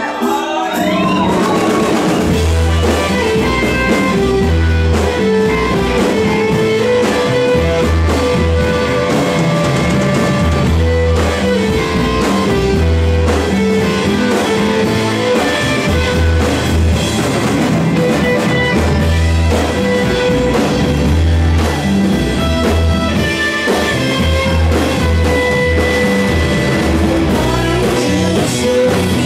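Live rock band playing, with electric guitar and drum kit; a heavy bass pulse comes in about two seconds in and carries on in a steady pattern.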